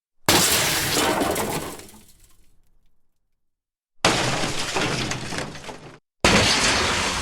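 Three crash sound effects one after another, each a sudden loud crash of something breaking. The first trails off over about two seconds; the second cuts off abruptly.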